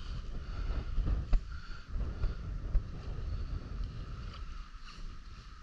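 Wind buffeting the microphone, a steady low rumble, with a few small clicks about one and three seconds in.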